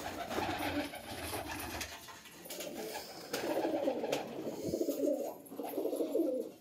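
Domestic pigeons cooing, the cooing growing louder from about halfway through.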